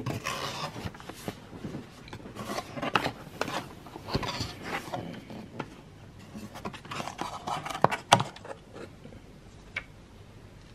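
A cardboard camera box being opened by hand: flaps and lid rubbing and scraping in irregular bursts, with a couple of sharp clicks a little before eight seconds in.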